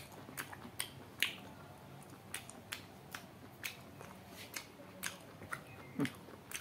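Chewing with wet mouth clicks and lip smacks, about two or three a second, from someone eating cooked duck meat.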